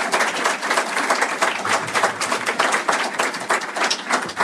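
Audience applauding, a dense run of many individual claps.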